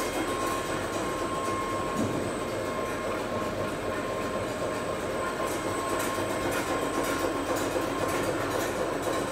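Sandwich-biscuit production and packing machinery running: a steady mechanical din with a thin, steady whine.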